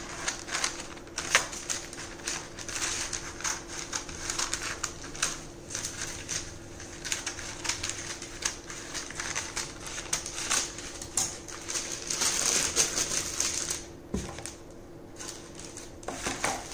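Parchment paper crackling and rustling as it is unrolled and cut with scissors, made up of many irregular short crackles and snips. The noise is heaviest shortly before a dull knock about fourteen seconds in, then quietens.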